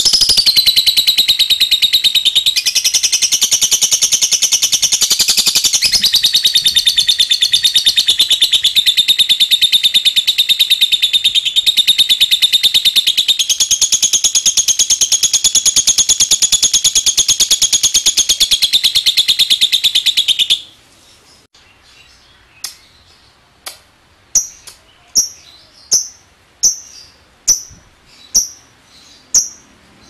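Fischer's lovebird giving a long, unbroken 'ngekek': a very fast chattering trill held for about twenty seconds, shifting in pitch a few times. It then stops abruptly and gives way to sharp single chirps, roughly one a second.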